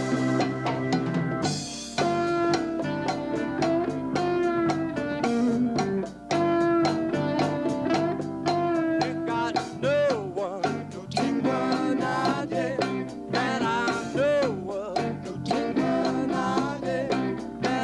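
A live band playing a bluesy rock number: a drum kit keeping a steady beat under bass, keyboards and guitar, with bending, sliding notes.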